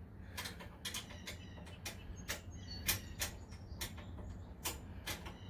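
Irregular metallic clicks and clinks of a wrench working a stubborn bolt on a push mower, about a dozen over a few seconds, some with a short ring. A steady low rumble of wind runs underneath.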